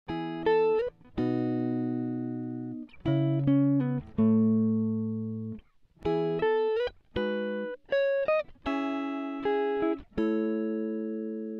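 Background music: a slow melody of plucked notes and chords, each note ringing and fading before the next.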